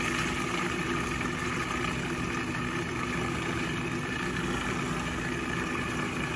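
Countertop food processor motor running steadily, blending peanut sauce, with an even hum throughout.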